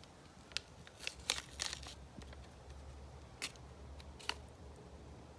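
Reciprocating saw blade packaging being opened by hand: a string of sharp plastic crackles and clicks, bunched together about a second in, with two more single clicks later on.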